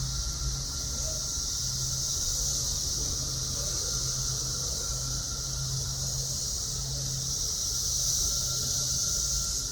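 Chorus of cicadas buzzing in one steady, high-pitched drone that swells slightly near the end, with a low hum coming and going underneath.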